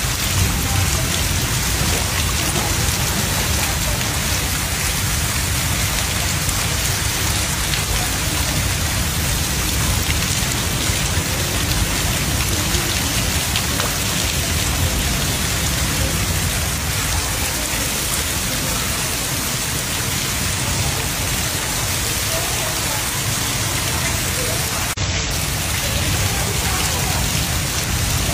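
Heavy rain pouring onto floodwater that is running along a narrow street: a steady, dense hiss with a deep rumble underneath.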